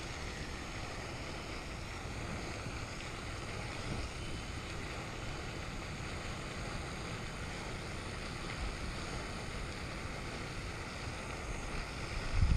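Steady wind noise buffeting the microphone, an even low rumble with a hiss over it.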